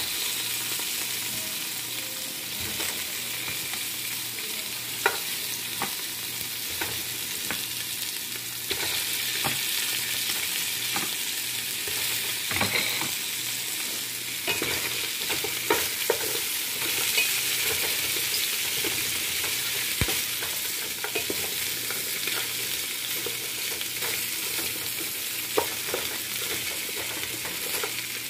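Pork pieces sizzling steadily as they fry in oil with garlic and onion, being browned, with scattered clicks and scrapes of a spatula stirring them in the pot.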